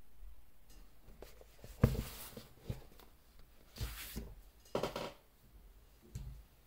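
Handling noises: a sharp knock about two seconds in, the loudest, followed by several short rustles and light scrapes.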